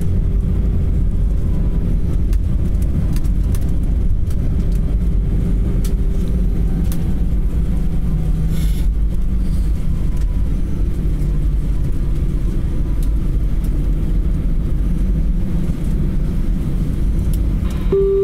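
Airbus A320 cabin noise during the landing rollout: a loud, steady low rumble of the engines and the wheels on the runway as the airliner slows. A chime tone starts right at the end.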